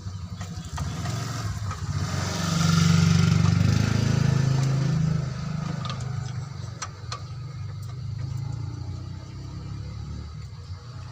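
An engine running with a low rumble that grows louder about two seconds in and eases off after about five seconds, with two sharp clicks a little past the middle.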